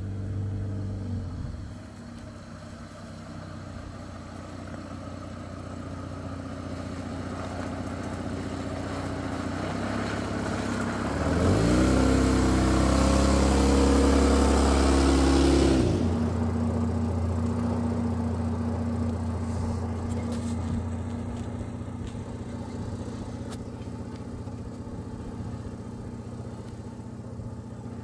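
Toyota Land Cruiser 80-series engine running as the truck drives on a sandy track, growing slowly louder as it approaches. From about 11 to 16 seconds in it is at its loudest, the engine pitch stepping up as it revs and then dropping back. It then runs steadily at a lower level.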